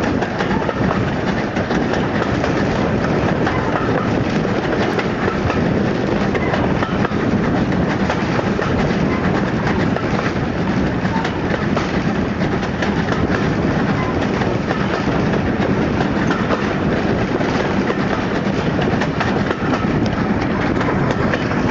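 LMS Stanier Mogul 2-6-0 steam locomotive 42968 working hard up the line, its exhaust thrashing, mixed with the train's wheels clattering over the rail joints. Heard from an open carriage window behind the engine, with a steady loud rush of noise.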